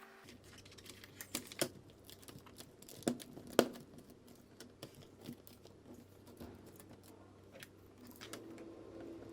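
Irregular small plastic clicks and taps with some crinkling from a laptop keyboard being handled during replacement, the two loudest clicks about three seconds in, half a second apart.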